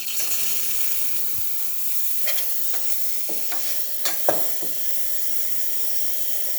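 Steam wand of a Pasquini espresso machine opened and venting: a steady, loud hiss of steam, with a few brief crackles and pops in the middle.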